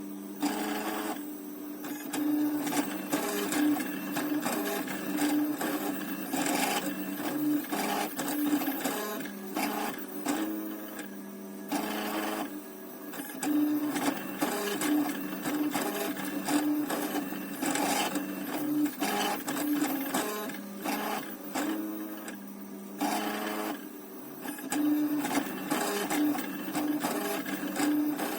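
Small stepper motors of a DIY 3D printer built from old CD-drive mechanisms, buzzing and whining in short, changing tones with frequent stops and starts as the print head moves.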